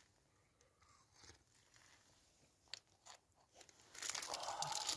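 Faint rustles and a few small clicks, then, about four seconds in, a plastic Boost chocolate-bar wrapper crinkling as it is handled.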